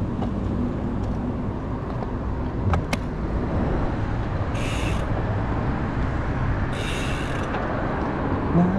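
Steady wind and road rush on the microphone of a moving bicycle, with the rear freewheel hub ticking in two short buzzing spells as the rider coasts, about halfway and about three-quarters through. Two sharp clicks come about a third of the way in.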